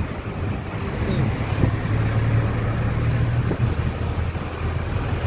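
Car driving along a street, heard from inside the cabin: a steady low engine hum under road and wind noise.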